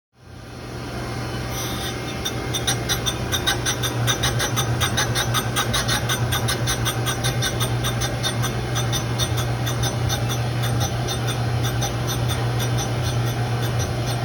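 Precision grinding machine running on an engine part: a steady motor hum with a dense, rapid scratching of the abrasive wheel on metal, as the part is ground down to take off its high spots.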